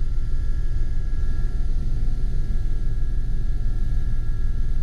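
Aérospatiale Gazelle SA341C turbine helicopter in cruise flight, heard from inside the cabin: a loud, steady low rumble from the rotor and turboshaft engine, with a faint steady high whine above it.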